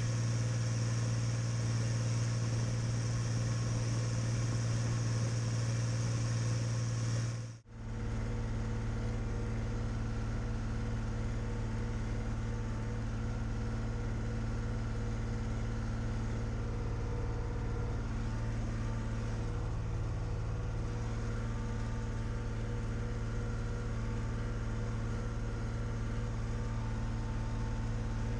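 Deutz-Fahr DX6.05 tractor engine running steadily with a deep hum. The sound cuts out for a moment about seven and a half seconds in, then resumes with a slightly different tone.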